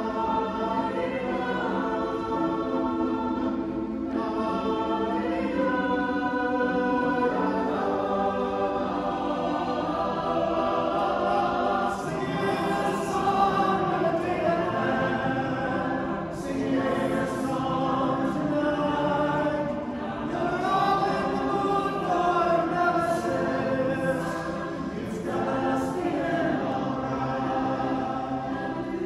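Small mixed choir of men and women singing a cappella in harmony, holding sustained chords that change every second or two. Several sharp 's' sounds are sung together in the second half.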